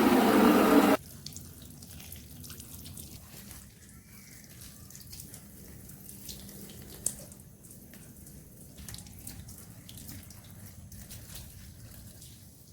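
Kitchen tap running loudly, shut off suddenly about a second in, followed by quiet dripping and small clinks of things being handled at the sink.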